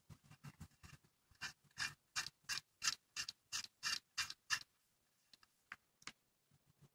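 A run of about a dozen sharp clicks, roughly three a second, as a threaded switch on a clutch pedal bracket is twisted by hand; fainter, scattered clicks come before and after the run.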